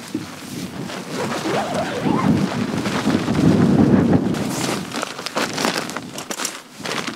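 Strong wind buffeting the microphone in gusts, loudest a few seconds in, followed by a run of short scratchy sounds near the end.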